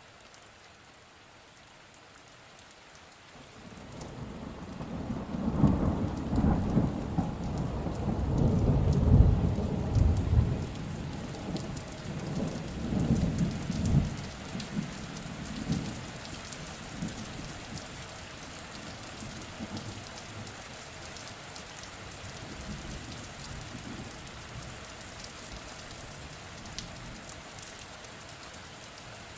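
Steady rain falling, with a long rolling rumble of thunder that builds a few seconds in, is loudest about a third of the way through, swells again a few times and dies away by the middle, leaving the rain alone.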